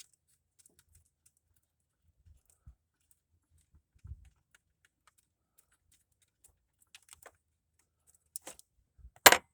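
Scattered faint clicks and taps of hand-tool work on the engine, with an occasional low knock and one loud, sharp clack near the end.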